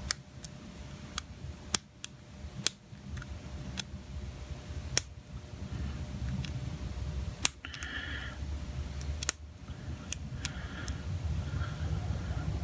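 Lock pick and tension wrench working the wafers of a Chicago Duo wafer padlock: small, sharp, irregular clicks over a low rumble of handling the lock. There is faint scraping near the middle and toward the end.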